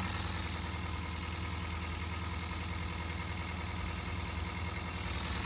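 Cyldon 13/2 model steam engine running very fast: a steady, rapid, even beat with no change in speed.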